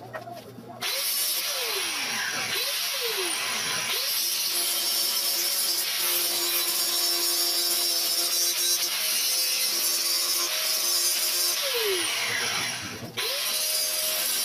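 Electric angle grinder grinding rust off a steel bus tailgate frame. It starts about a second in, and its whine falls and rises as the disc is pressed into the metal and eased off. It drops away briefly near the end and then picks up again.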